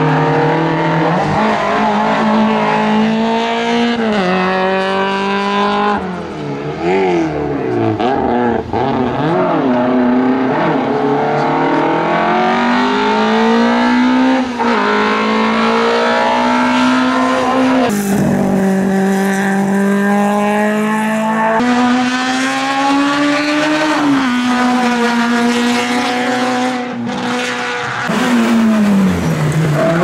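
Fiat 127 Sport rally and hillclimb cars' small four-cylinder engines revving hard over several separate passes. The engine note climbs as the car accelerates through the gears and drops with each shift and each lift for a corner.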